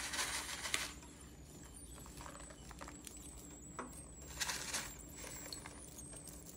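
Bacon bits shaken from a pouch and sprinkled by hand into a skillet of raw beaten eggs: short soft rustling and pattering bursts, one at the start lasting under a second and another about four and a half seconds in, over a faint steady hum.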